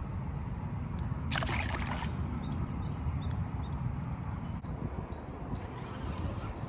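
A small catfish released into shallow water, splashing once about a second and a half in, over a steady low rumble.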